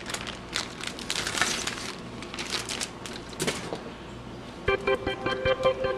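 Clear plastic bag crinkling and rustling in short, irregular crackles as it is handled. Background music starts near the end.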